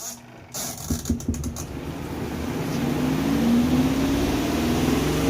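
A few sharp clicks, then the spin-dryer motor of a Costway portable twin-tub washing machine starting up. Its humming rises in pitch and grows louder as the spin basket comes up to speed.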